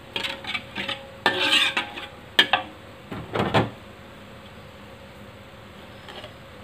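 A metal spoon stirring and scraping chili sambal around a wok, with sharp clinks against the pan, for the first few seconds. Then the spoon stops and only a faint steady hiss from the simmering sauce remains.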